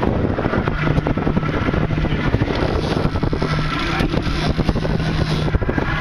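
Wind buffeting the microphone on an open boat, over the steady low hum of an outboard motor running, which comes in about a second in and fades near the end.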